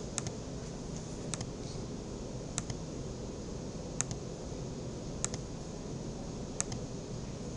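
Computer mouse clicking, six sharp clicks evenly spaced about one every second and a quarter, over a steady low room hum.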